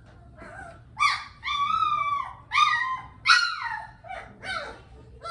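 Three-week-old Bernese Mountain Dog puppy crying in a series of high whining yelps, the longest lasting about a second; the loudest cry comes a little past three seconds in, with fainter ones near the end.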